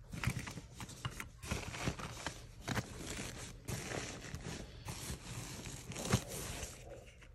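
Hands rummaging in a padded nylon camera backpack: irregular fabric rustling and scraping with scattered knocks, the sharpest about six seconds in.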